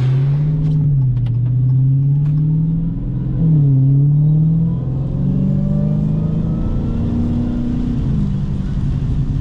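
Supercharged 6.2-litre HEMI V8 of a Dodge Hellcat driving, its engine pitch climbing and then dropping several times as it shifts through gears.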